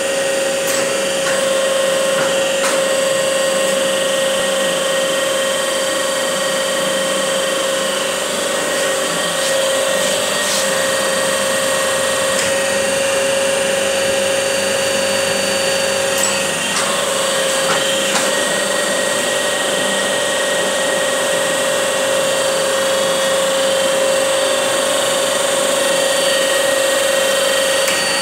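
Birdi special-purpose milling machine running steadily: a constant machine hum with one clear steady whine, and a few faint clicks.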